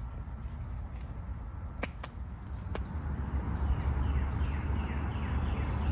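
A songbird singing a quick run of repeated down-slurred notes, starting about halfway through, over a steady low rumble. A few sharp clicks come before the song.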